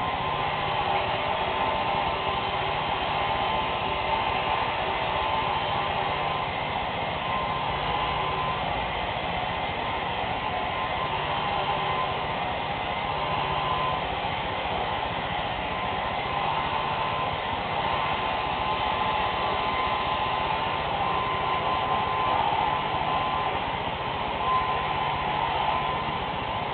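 Handheld electric hair dryer running steadily on long hair, a continuous blowing rush with a steady motor whine.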